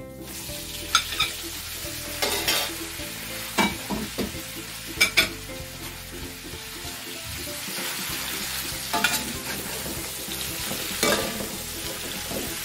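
Chicken pieces sizzling as they fry in hot oil in a metal wok. The sizzle starts as the chicken goes in, and a spatula knocks and scrapes against the pan every second or two.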